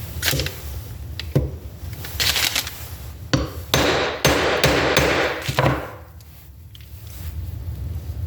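Hammer knocks on metal, driving a press-fit part into place on a Toyota 4A-FE distributor shaft. Several separate sharp knocks, with a longer, denser noisy stretch from about four to six seconds in.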